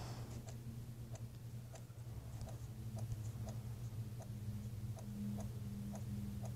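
Faint, even ticking, about two ticks a second, over a low steady hum.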